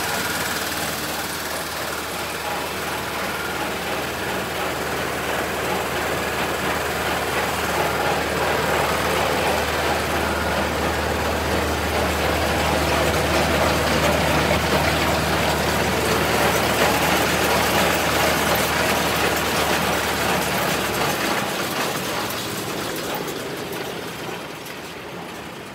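Massey-Ferguson 1843S small square baler running on its own Deutz diesel engine: a steady engine drone under the rattle of the baler's mechanism. The low engine note drops out about 21 seconds in, and the sound fades near the end.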